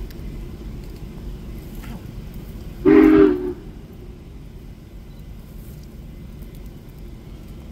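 Union Pacific 4014 "Big Boy" steam locomotive sounding one short, loud blast of its chime whistle about three seconds in.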